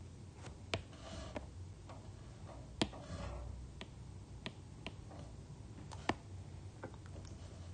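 A stylus tapping on an iPad's glass screen: about eight light, irregular taps, with faint brushing between a few of them.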